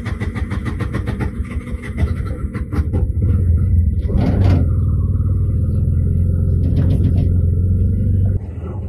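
Auto-rickshaw engine heard from inside the cabin, pulling away with a fast even puttering, then settling into a heavier, louder rumble as it drives. The sound drops off abruptly near the end.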